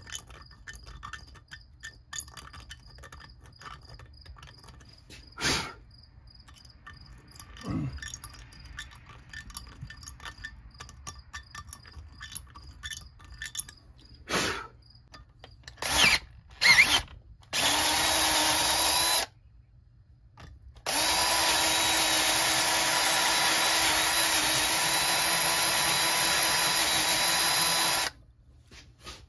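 Cordless drill running with its bit against a vise jaw plate: a few short trigger blips, a brief run, then a steady run of about seven seconds that stops near the end. Light tapping and a few clicks come before the drilling.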